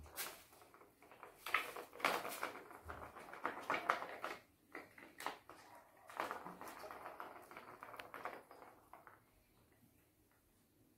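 Small balls rolling and rattling around plastic ball-track cat toys as kittens bat at them: a busy clatter of quick clicks that dies down near the end.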